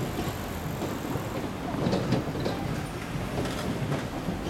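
A Meitetsu train rolling past over the level crossing: a steady low rumble with a few sharp wheel clicks in the middle.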